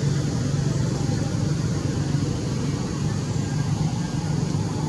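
Steady low rumble of vehicle engines, with a constant hiss above it.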